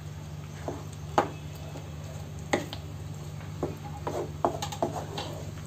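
A wooden spatula stirring a thick curry in a non-stick kadai, knocking and scraping against the pan in scattered short knocks that come more often in the second half, over a steady low hum.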